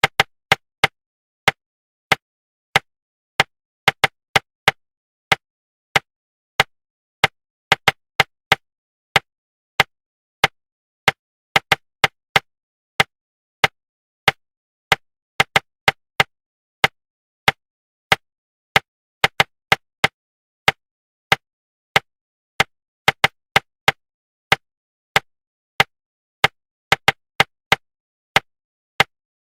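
Sharp knocks tapped out in an uneven rhythm, about one or two a second, some single and some in quick groups of two to four, with silence between them. This is a rhythm-knock pattern of the kind used to suppress inner articulation while speed reading.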